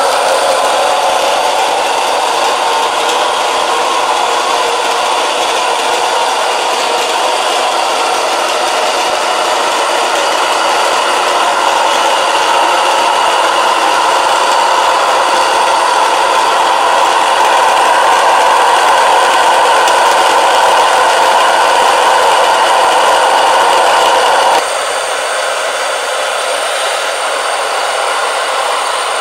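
Komo Fidibus electric stone mill running steadily as its millstones grind wheat into flour. About 25 seconds in, the sound drops abruptly to a slightly quieter, thinner whirr.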